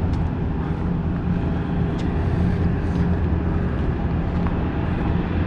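Flatbed straight truck's diesel engine idling, a steady low drone.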